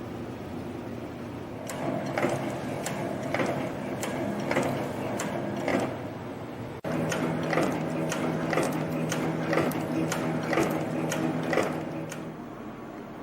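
CNC wire and strip forming machine running: a steady machine hum with sharp, rhythmic forming strokes about two a second. The sound drops out for an instant about seven seconds in, then the strokes carry on until near the end.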